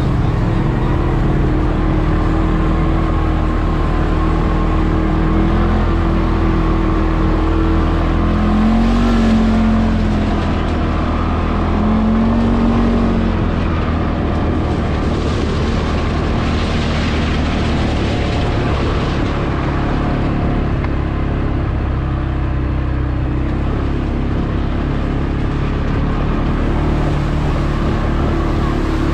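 CFmoto CForce 520 ATV engine running steadily while riding, its pitch rising and falling with the throttle, with passing stretches of rushing noise over it.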